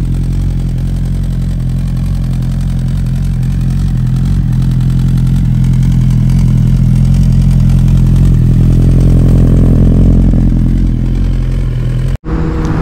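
Suzuki GSX-R1000R's inline-four engine idling steadily, warming up after a cold start. The sound cuts off abruptly near the end.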